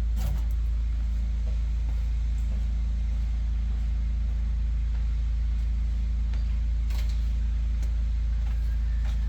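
Car engine running at a steady idle, with a few light clicks over it.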